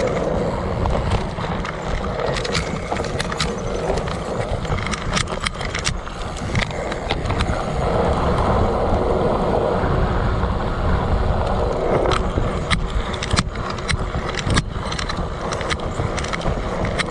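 Fat-bike knobby tyre rolling fast over a dirt trail, a steady rumble with scattered sharp clicks and rattles, picked up by a camera mounted on the bike.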